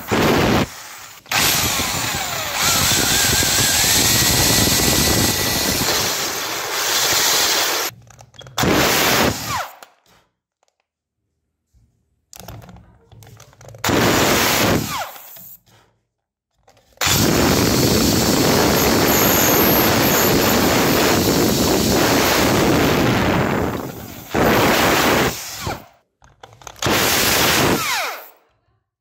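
Electric drill running and boring small holes through MDF board, in several separate runs that start and stop abruptly, with the motor's pitch falling as it spins down at the end of some runs.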